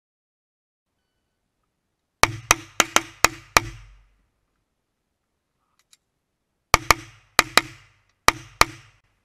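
Pistol shots: a quick string of six fired about a quarter second apart, then after a pause three pairs of fast double-taps.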